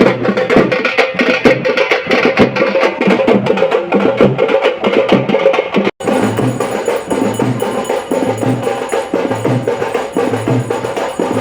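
Drums played in a fast, dense rhythm of sharp strokes. About six seconds in the sound cuts abruptly to another stretch of drumming, with a heavier low beat about once a second under the fast strokes.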